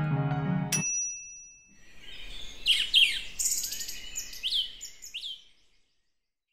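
Keyboard music ends suddenly with a click and a short ringing ding. Then birds chirp and sing in quick rising and falling calls for about four seconds, stopping short before the end.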